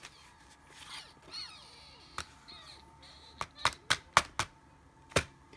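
Clear plastic storage pouch holding metal circle cutting dies being handled. It gives a few sharp crackles and clicks, most of them bunched around three and a half to four and a half seconds in, with one more near the end.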